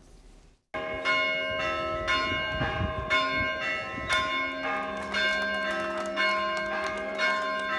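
Church bells ringing a festive peal: several bells of different pitch struck again and again in quick succession, their tones overlapping. The ringing starts suddenly just under a second in.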